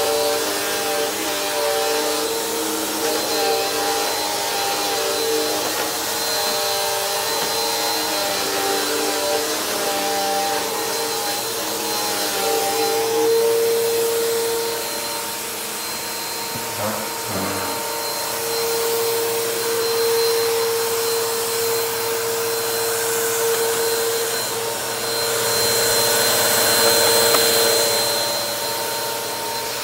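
Bissell PowerForce Helix upright vacuum cleaner running: a steady motor whine over a hiss of rushing air. The pitch wavers in the first half, then holds steady, and the air hiss grows louder for a few seconds near the end.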